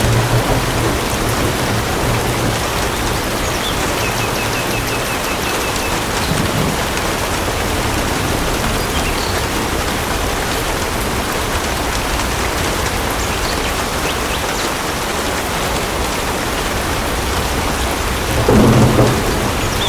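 Steady heavy rain pouring down, with a low rumble of thunder at the start and a louder thunder rumble near the end.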